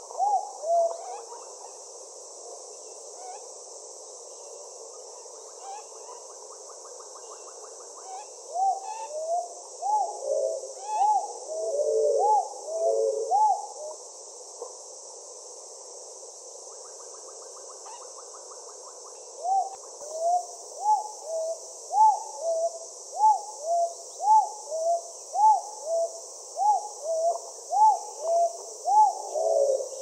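Andaman cuckoo dove calling: a run of low, arched hooting notes, about two a second, heard in a stretch about eight seconds in and again steadily through the last ten seconds. Under it runs a steady high insect buzz.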